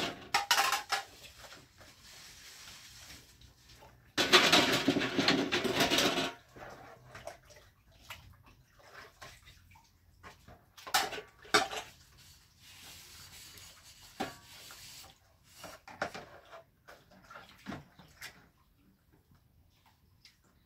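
Dishes washed by hand: water splashing loudly for about two seconds, then a few sharp clinks of pots and dishes.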